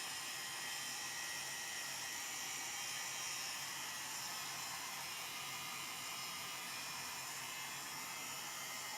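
Heat gun blowing hot air on a low setting, a steady hiss, shrinking plastic shrink-wrap film around a product.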